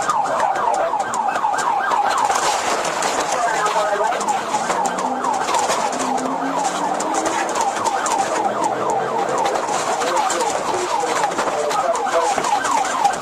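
Police car siren in a rapid yelp, its pitch sweeping over and over about five times a second.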